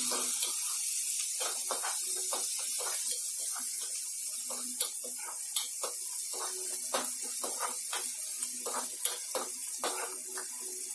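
Chopped onion sizzling in hot oil in a metal kadai, a steady hiss, while a metal spoon stirs it, scraping and clicking against the pan many times. The onion is being sautéed.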